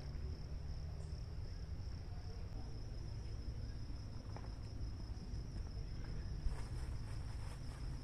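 Insects chirring in one steady, high-pitched drone, with a low rumble underneath.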